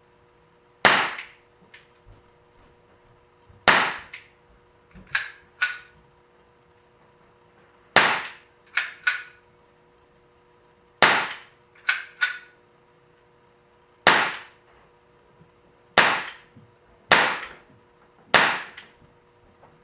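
Gletcher Tokarev TT-NBB CO2 BB pistol, a non-blowback replica, firing eight shots, each a sharp crack, at uneven intervals of one to four seconds. Lighter clicks come between some of the shots.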